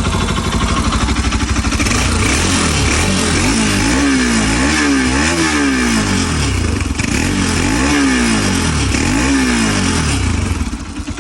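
Bajaj Pulsar 200's single-cylinder engine idling, then revved up and down several times before settling back to idle near the end. It has just had its timing repaired and runs without odd noises.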